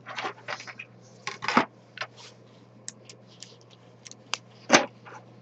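3D-printed plastic parts and their support material being scraped off a perforated build plate with a spatula and picked apart by hand: scattered scrapes and crisp clicks, with one sharp crack about three-quarters of the way through.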